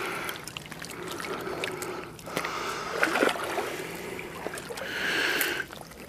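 Shallow water sloshing and splashing as a carp is eased out of a metal-framed retention sling by hand, with uneven swells and small splashy clicks.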